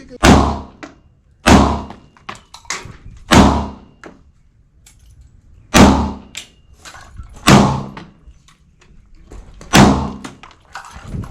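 Six loud gunshots fired one at a time, a second or two apart, each with a short echoing tail, and fainter shots or knocks between them.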